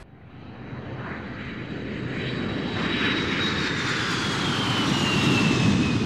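Airplane passing by: its engine rush swells steadily louder while a high whine slowly falls in pitch.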